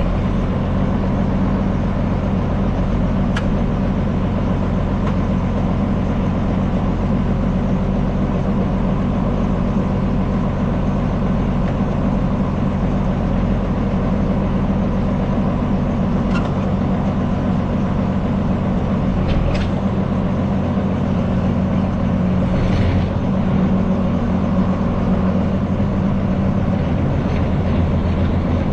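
A farm tractor engine running steadily, with a few faint clicks over it.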